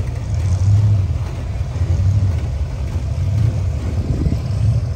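Lifted pickup truck's engine running at low speed, a steady low rumble that swells and eases every second or so.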